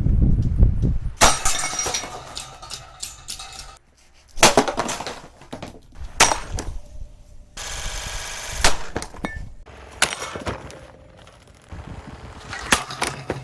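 Pelonis plastic table fan being smashed and broken apart: a series of hard impacts with cracking, breaking plastic, some in quick clusters.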